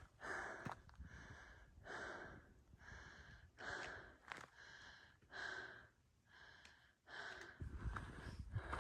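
A hiker breathing hard in steady, even breaths, about one a second, from the exertion of a steep uphill climb.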